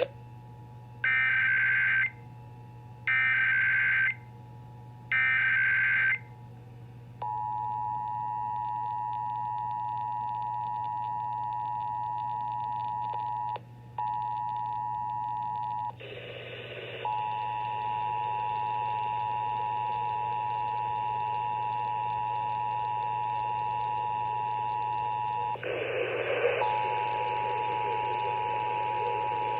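Emergency Alert System tones over AM radio: three one-second bursts of warbling SAME digital header data about a second apart, then the steady two-tone attention signal (853 and 960 Hz sounding together). The attention signal drops out briefly once and is broken twice by short bursts of noise.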